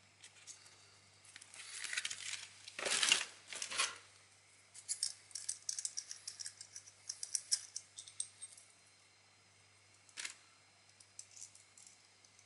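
A plastic pouch of small steel saw blades being handled: rustling and crinkling of the plastic, loudest about three seconds in, then a run of small clicks and ticks, with a few lone clicks later on.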